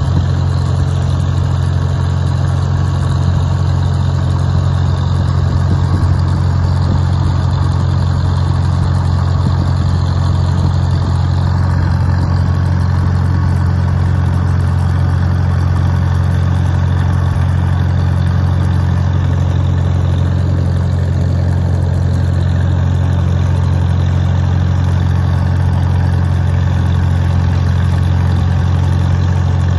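1950 Farmall M tractor's four-cylinder engine running at a steady speed as the tractor drives along, heard close up from the driver's seat.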